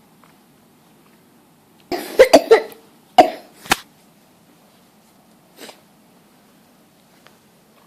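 A person coughing in a fit: a quick run of three or four coughs about two seconds in, then two more a moment later, and one faint short cough a couple of seconds after that.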